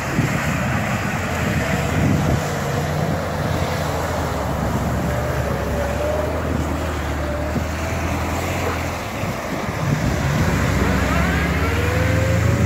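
Ford Ranger pickup's engine running under load through mud, with rising revs in the second half, and wind buffeting the microphone.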